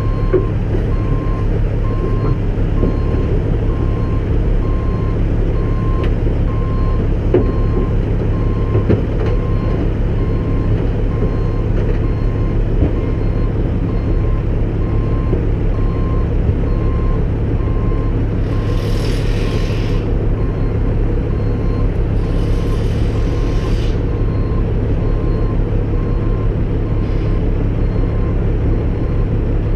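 CAT 313 excavator's diesel engine running steadily as the machine travels off the trailer, its travel alarm beeping over and over. Two short hisses of released air sound about 19 and 23 seconds in.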